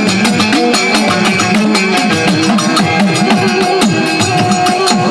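Gujarati devotional folk music: fast, steady drumming under a melody that slides up and down.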